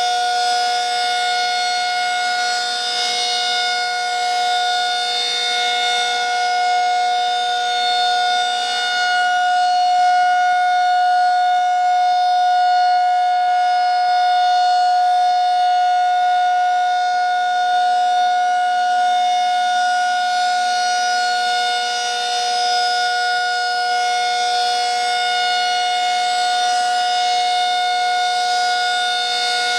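Federal Signal 2001-SRN rotating siren sounding a steady alert tone, two notes held together at a constant pitch. It swells and fades gently as the horn turns.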